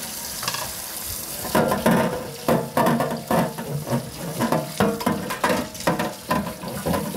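Tap water running over a wire barbecue grill rack in a stainless steel sink, then a brush scrubbing the rack in short strokes, about two a second.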